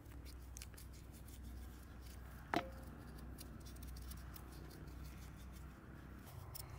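A small kitchen knife peeling a raw potato: a run of soft scraping clicks as the blade shaves off the skin, with one sharper click about two and a half seconds in.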